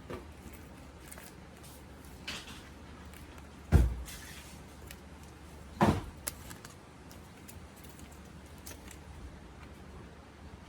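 Handling of a jacket's hardware and fabric: a few small clicks, with two sharp knocks about four and six seconds in.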